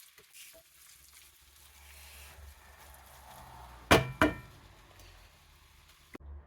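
Faint sizzling from a pot of chickpeas and quinoa on the stove, with two sharp, ringing clinks close together about four seconds in.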